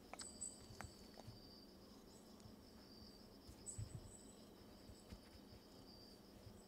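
Faint crickets chirring steadily, with a few soft clicks in the first second.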